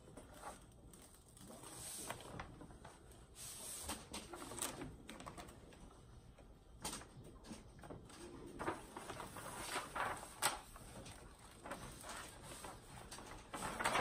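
Paper rustling and crinkling as the protective release sheet is peeled back from the sticky surface of a diamond painting canvas, with a few sharper ticks, one about 7 seconds in and another about 10 seconds in.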